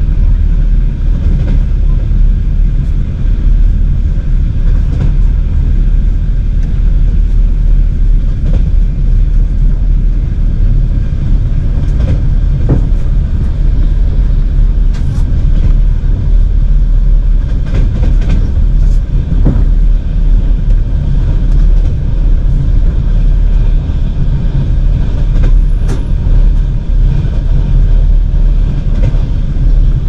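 A moving train's steady low rumble, with a few short knocks about halfway through.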